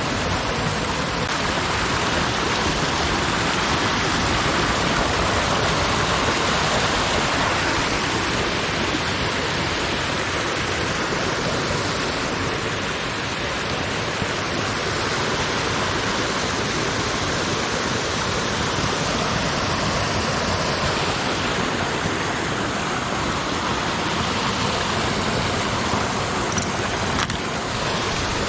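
Creek water flowing, a steady rushing.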